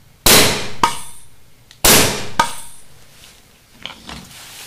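Homemade pneumatic paintball gun fired twice, about a second and a half apart: each shot is a sharp pop with a rush of escaping air that trails off. A smaller click follows each shot about half a second later as the pneumatic cylinder's piston retracts. Faint handling knocks come near the end.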